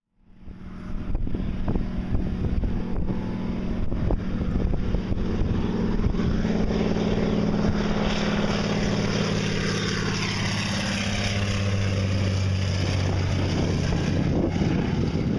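Single-engine floatplane's piston engine and propeller running at full power as it flies past low over the lake and climbs away. The drone grows louder toward the middle, then drops in pitch as the plane moves off.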